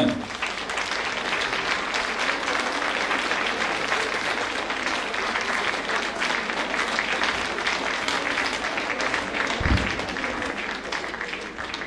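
Audience applauding steadily, thinning out near the end, with a brief low thump just before ten seconds in.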